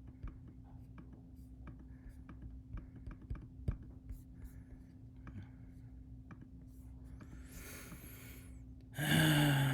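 Computer mouse clicking in scattered single clicks over a steady low electrical hum, then a loud exhale about nine seconds in.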